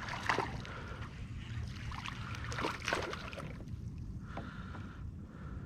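A few light clicks and knocks on a fishing kayak over a low, steady rumble of wind and water.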